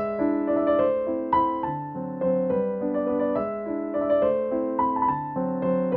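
Background music: a piano piece playing a steady run of notes and chords.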